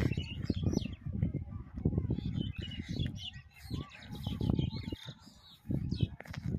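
Birds chirping over a low, uneven rumble of wind buffeting the microphone.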